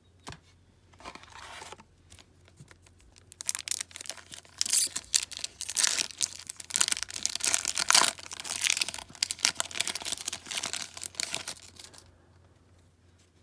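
A trading card pack's wrapper being torn open and crinkled: a short rustle about a second in, then a long stretch of dense crackling from about three seconds in until shortly before the end.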